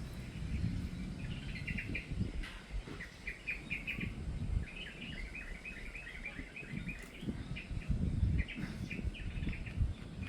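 Small birds chirping in quick repeated series, several chirps a second, over a low, uneven rumble.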